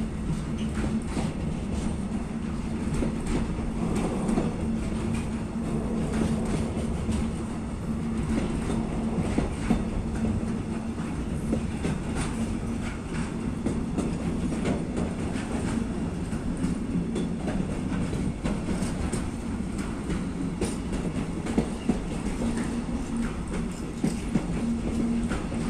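Container freight train rolling past, its flat wagons' wheels running over the rails with repeated clicks over a steady low hum, and a few sharper knocks.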